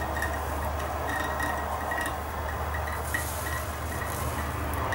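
Handheld hot wire foam cutter humming steadily, its wire pressed into the foam block, with faint crackling. A hardened Gorilla Glue seam is stopping the wire from cutting through.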